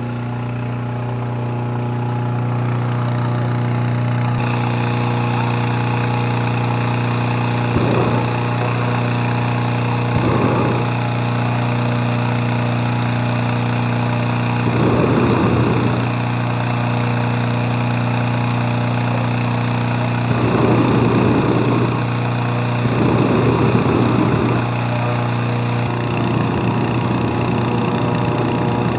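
Small petrol engine of a hot air balloon inflator fan running steadily at a constant speed. Several short bursts of rushing noise sound over it, the last near the end as the propane burner fires into the envelope.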